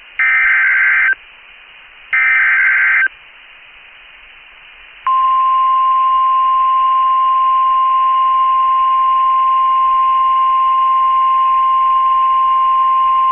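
Emergency Alert System SAME header data bursts: the last two of three raspy one-second bursts, about a second apart. About two seconds of quiet follows, and then, some five seconds in, NOAA Weather Radio's steady single-pitched 1050 Hz warning alarm tone starts and holds. The bursts encode the warning for receivers, and the tone signals that a warning message follows.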